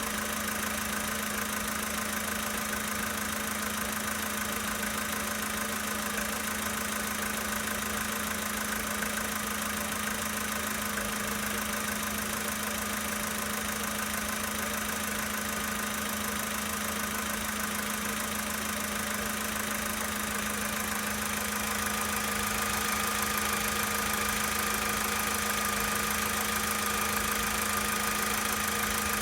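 Volkswagen Polo Sedan's 1.6-litre four-cylinder petrol engine idling cold with a knock from the engine. The knock is the fault being recorded. It gets a little louder about three-quarters of the way in.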